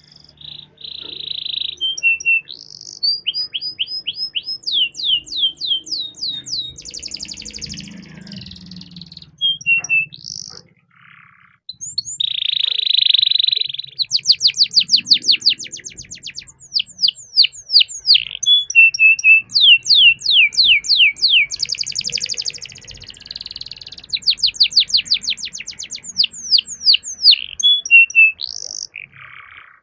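Domestic canary singing a long, loud song. Long rolls of fast, evenly repeated sweeping notes alternate with short buzzy trills, with a brief pause partway through.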